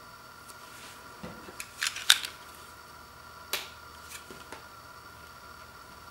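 A few sharp clicks and taps from hands handling a shrink-wrapped LP record jacket and a plastic box cutter. There is a quick cluster of clicks about two seconds in, the loudest of them near the end of it, then one more click a second and a half later and a couple of light ticks.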